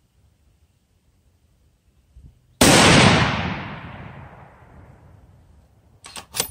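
A single rifle shot from a Savage .243 Winchester bolt-action rifle about two and a half seconds in, its report echoing and dying away over about three seconds. Near the end come several sharp metallic clicks and clatters as the bolt is worked.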